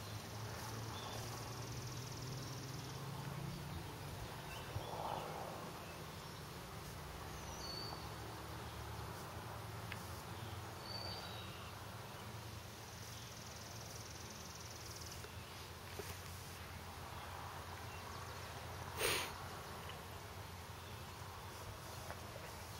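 Quiet outdoor ambience: insects buzzing in a high steady tone that comes and goes, with a few short bird chirps over a faint low hum. One brief sharp rustle or snap near the end stands out above the rest.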